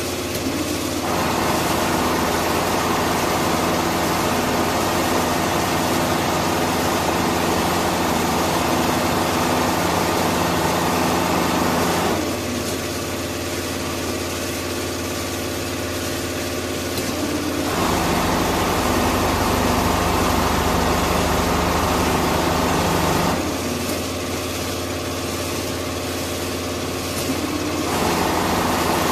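Richpeace four-head CNC sewing machine stitching quilted patterns into fiber-filled jacket panels: a steady mechanical hum of the running sewing heads and moving frames. It grows louder for three long stretches and eases back in between.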